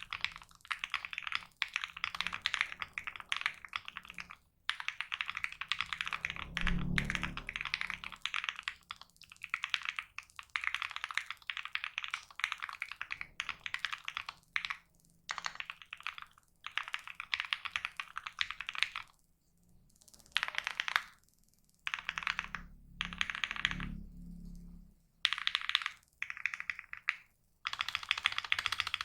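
Fast typing on a custom mechanical keyboard with a polycarbonate plate and Krytox 205g0-lubed Gateron Ink switches: runs of rapid keystrokes broken by short pauses. Twice, about 7 seconds in and again around 24 seconds in, there is a low thump under the typing.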